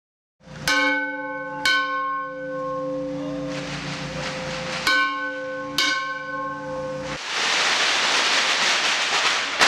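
A bell struck four times in two pairs, each strike ringing on with a bright metallic tone, the ringing stopping suddenly about seven seconds in. A steady, loud hiss of noise follows.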